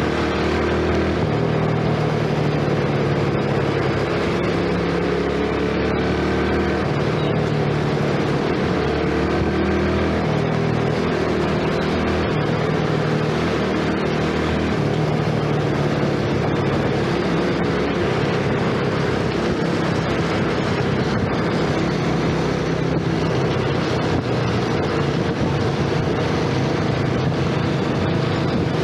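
Yamaha 115 cc single-cylinder four-stroke scooter engine running while riding, its pitch stepping up and down with the throttle, over the hiss of tyres on a wet road.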